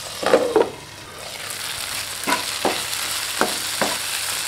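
Oil sizzling in a nonstick frying pan of shallots, tomato and chillies. A glass lid clatters onto the pan near the start, then the sizzle carries on with four sharp knocks of a spatula against the pan as the mixture is stirred.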